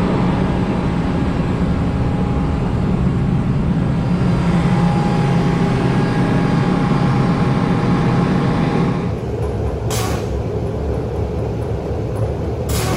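Large trailer-mounted diesel welding-power generator (MMD PowerPro 150) running steadily at high speed, a loud even drone. About nine seconds in it gives way to a lower, rougher steady sound with two sharp clicks.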